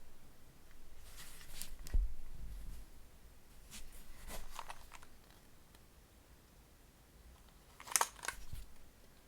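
Typing on a KBDfans D60 WKL mechanical keyboard, a gasket-mounted board with an FR4 plate, TTC Bluish White switches and PBT keycaps: keystrokes in short uneven bursts with a pause in the middle, the densest flurry near the end, and a deeper thud about two seconds in.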